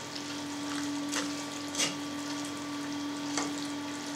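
Boiling water poured in a steady stream from a ceramic teapot onto strips of pork fatback in a metal colander, scalding them. A spoon clinks lightly against the colander a few times, and a faint steady hum runs underneath.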